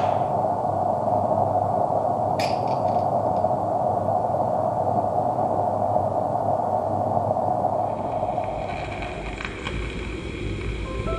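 Steady rushing hiss from a Gauge 1 live-steam model steam locomotive being fired up while its boiler pressure rises, with a sharp click about two and a half seconds in. The rushing fades out about eight seconds in.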